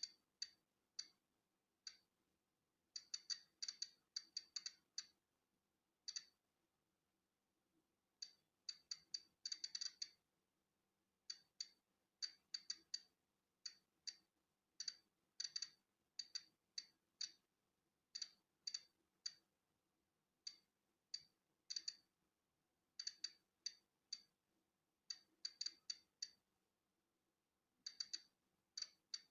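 Polon EKO-C digital Geiger counter clicking at random intervals as it detects natural background radiation. The short, sharp clicks come sometimes several in quick succession and sometimes with gaps of up to about two seconds.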